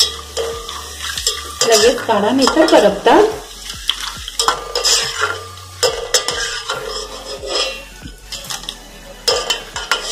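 Strips of sun-dried gourd peel deep-frying in hot oil in a metal pot, sizzling, while a steel slotted spoon stirs them with repeated scrapes and clinks against the pot; the stirring is loudest about two to three seconds in.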